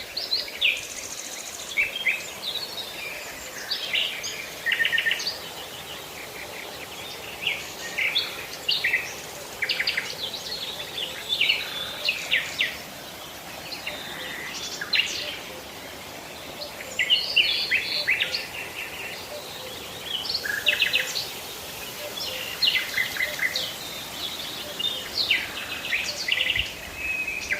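Songbirds chirping and trilling outdoors: short, high calls and quick rattling trills keep coming throughout, over a faint, steady background hiss.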